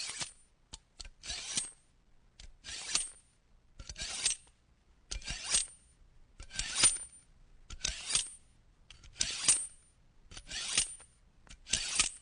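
Knife blade being sharpened in evenly repeated strokes, about one every second and a third, each a short metallic scrape with a faint ring. A few light clicks come between the first strokes.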